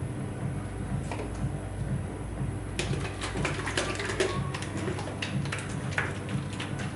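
Irregular clicking and clattering of a plastic polish bottle and nearby items being picked up and handled, starting about three seconds in and stopping near the end, over a steady low hum.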